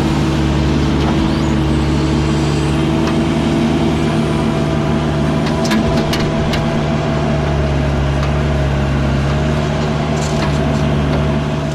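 Heavy diesel engine running at a steady speed, with a few short sharp clicks about six seconds in.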